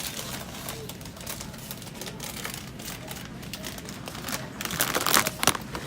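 Irregular clicks and rustling over a steady low hum, getting denser and louder near the end.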